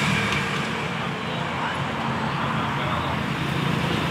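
Steady motor-vehicle and road-traffic noise with a low engine hum, with no distinct event standing out.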